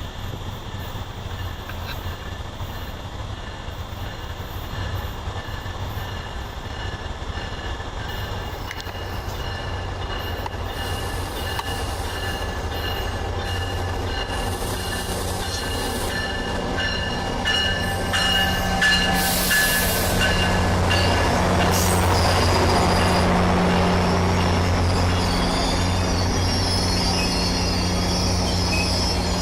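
MARC commuter train pulling into the station with its brakes squealing in steady high tones, growing louder as it draws close. A low locomotive hum builds under it, with a short hiss of air partway through.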